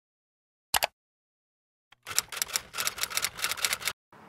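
Typewriter keystroke sound effect: a single key strike about a second in, then a rapid run of key strikes from about two to four seconds in, with dead silence between them.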